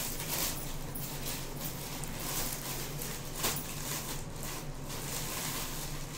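Clear plastic packaging crinkling and rustling as a saree is handled and slid out of its bag, with several louder crackles.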